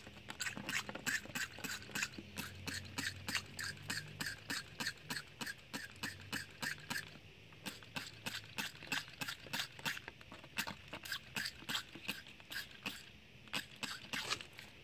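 Trigger spray bottle squeezed over and over, about four quick spritzes of water a second, washing drilling dust out of holes drilled in brick. The squirting pauses briefly about seven seconds in and again near the end.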